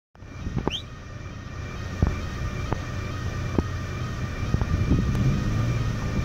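A car engine idling as a steady low rumble, with scattered sharp clicks and a brief rising chirp under a second in.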